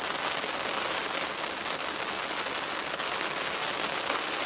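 Steady rain falling, an even hiss of many fine drops.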